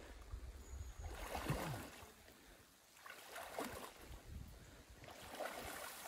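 Boots wading through a shallow, muddy streambed: faint, intermittent sloshing and squelching as each foot is pulled from the soft bottom, with a low rumble of wind on the microphone.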